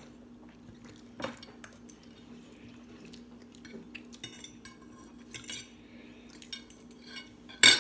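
Metal forks clinking and scraping on ceramic dinner plates as food is picked up, in scattered light clicks, with one loud clink near the end.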